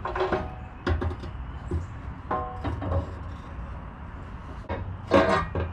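Metal exhaust header knocking and scraping against the car's underside as it is worked up into place: several short clanks with a brief ring, the loudest about a second in and near the end.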